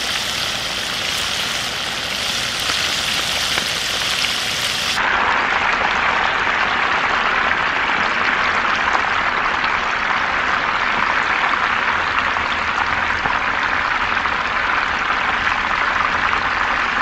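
Two whole tilapia deep-frying in hot oil, the oil sizzling and crackling steadily, a little louder from about five seconds in.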